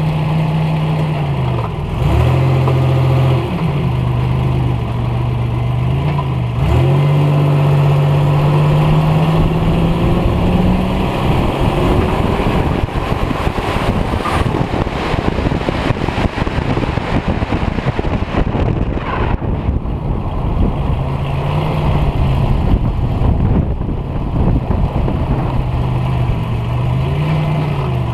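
Buick Regal T-Type's turbocharged 3.8-litre V6 running as the car drives, its note dropping and climbing back twice in the first seven seconds. Through the middle, wind and road noise on an outside-mounted microphone mostly cover the engine, which comes back through with pitch swings near the end.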